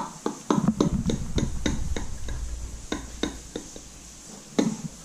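Knife cutting into a baked eggplant parmesan, clicking and knocking against the baking dish: a run of quick sharp clicks, about four or five a second, for three and a half seconds, then one more near the end.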